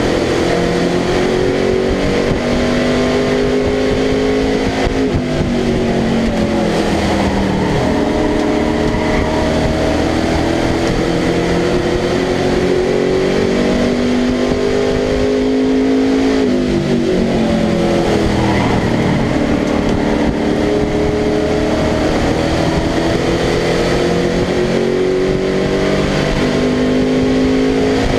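Race truck's engine heard from inside the cab under racing load. The pitch climbs steadily down each straight and drops off sharply three times, about every ten seconds, as the driver lifts for the turns.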